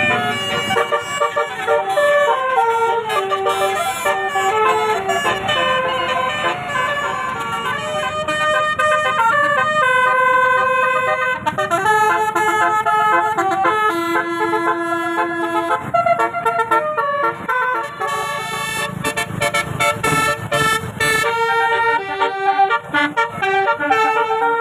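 A bus's telolet horn, a multi-trumpet musical horn, playing a melodious tune of quickly changing notes, one phrase after another. A low rumble sits underneath, strongest a little past the middle.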